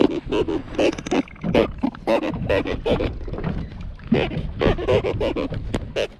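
Armado chancho catfish grunting out of the water as it is handled: a loud run of rapid, irregular, pig-like croaks.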